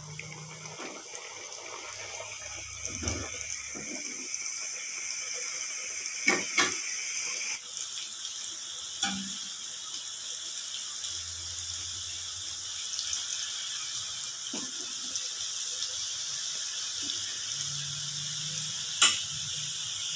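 Diamond-cut dough chips deep-frying in hot oil: a steady, busy sizzle, with a few sharp taps of the slotted spoon against the pan. The oil is still bubbling hard, so the chips are not yet cooked through.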